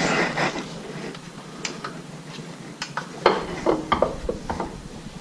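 Handling noise from working on a small generator by hand: scattered light clicks and clinks of wire and small parts, over rustling from a jacket rubbing on a chest-worn microphone.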